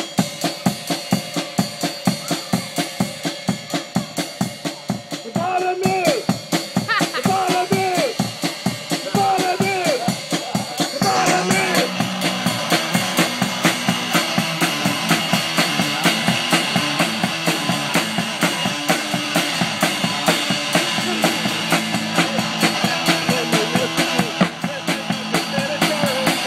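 Live rock band: a drum kit keeps a steady beat, a voice sings or shouts into a microphone from about five seconds in, and amplified electric guitar fills out the sound from about eleven seconds on.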